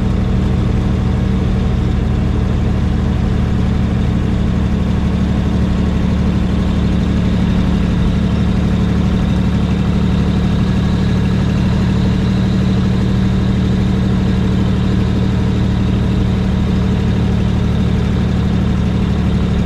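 Brockway semi truck's engine running steadily while the truck is driven, heard from inside the cab as an even, unchanging drone.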